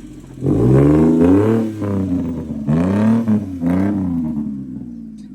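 An engine revving up and down, in three surges, then dying away near the end.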